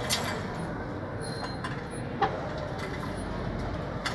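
Small metal pedal chain of an industrial sewing table being handled and hooked onto the foot pedal: a few light metallic clicks, the sharpest about two seconds in, over steady background noise.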